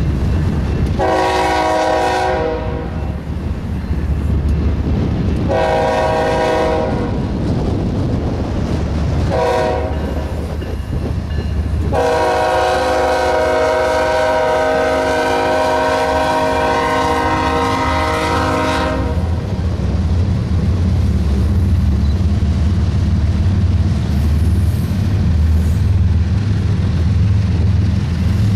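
BNSF freight locomotive's multi-chime air horn sounding the grade-crossing signal: two long blasts, a short one, then a final long blast held about seven seconds. After the horn stops, the diesel locomotives' engines and the double-stack cars rolling past make a steady low rumble that grows louder.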